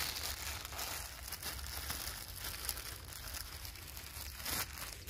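Close rustling, crackling noise on the microphone over a low rumble, continuous and uneven in level.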